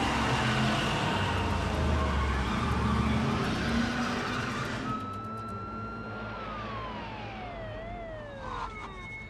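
A car engine running hard in a parking garage, with dense noise and a strong low rumble for about five seconds. It cuts off suddenly, and a single high tone takes over that holds, then slides slowly down in pitch.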